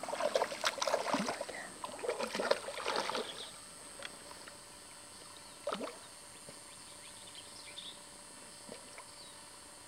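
Golden retriever splashing into and through lake water, a busy run of splashes for about three seconds. It then goes quieter, with a couple of brief single splashes.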